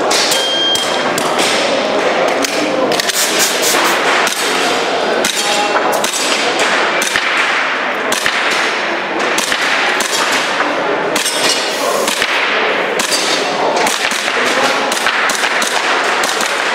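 Shot-timer beep about half a second in, then an airsoft pistol firing a long, uneven string of shots, with pellets clanging off steel plate targets and the reports echoing in a large hall.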